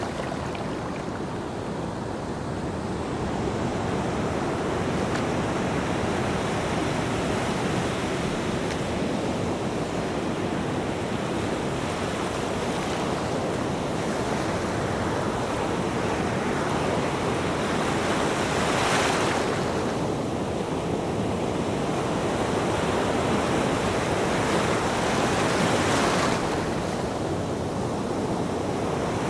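Ocean surf breaking on a beach: a steady wash of waves, with two louder wave breaks, one about two-thirds of the way in and another near the end.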